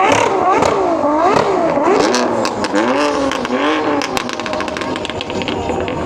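A high-performance car engine revved in a series of quick blips, its pitch climbing and dropping about once a second, with a run of sharp crackles from the exhaust in the middle.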